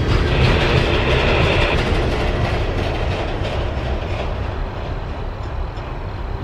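Freight train of tank cars and covered hoppers rolling by, its wheels rumbling and clacking on the rails, the sound fading steadily as the end of the train moves away.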